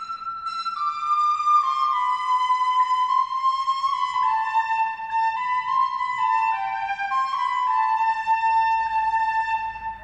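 Instrumental music: a slow melody of held notes in a flute-like voice, drifting gradually lower in pitch.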